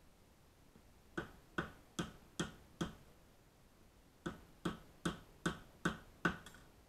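Hammer knocking on the top end of a wooden axe handle set in the eye of a small axe head, seating the head on the handle. Two runs of sharp, evenly spaced blows, five then six after a short pause, each with a brief ring.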